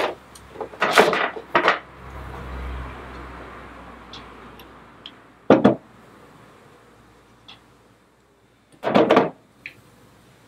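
Kitchen utensils clattering as a spatula scrapes mustard out of a small measuring cup into a stainless steel measuring jug: a run of knocks and scrapes in the first two seconds, a single sharp knock about five and a half seconds in, and another cluster near nine seconds.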